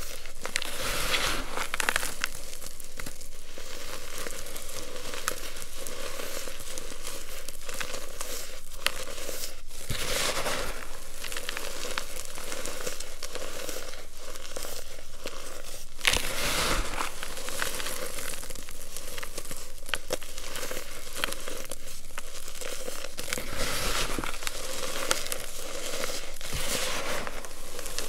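Hands crushing and crumbling packed blocks of reformed baking soda, cornstarch and gym chalk: a continuous dry crunching and crackling of powder, swelling louder several times as fresh lumps are squeezed.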